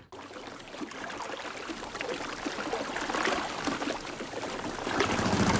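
Water lapping and splashing at a shoreline around swamped wooden boats, a steady wash that grows slightly louder. A low rumble comes in near the end.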